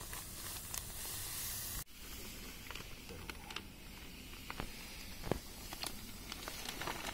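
Fine silica filter sand pouring from a plastic sack into a pool sand-filter tank, a steady hiss with faint ticks of grains and crinkles of the bag. It breaks off for an instant about two seconds in, then carries on.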